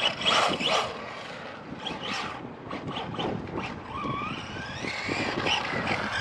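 Brushless electric motor of a Team Corally Syncro 2WD RC buggy running, its whine rising and falling in pitch as the throttle is worked. A few loud short bursts come in the first second.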